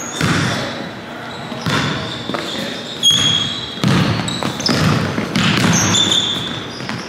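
Basketball dribbled on a hardwood gym floor, each bounce echoing in the large hall, with short high squeaks from sneakers on the hardwood as the players cut and defend.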